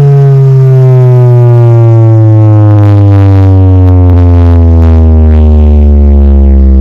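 Large carnival sound system's bass speakers playing one very loud, distorted low note that slides slowly downward for about seven seconds.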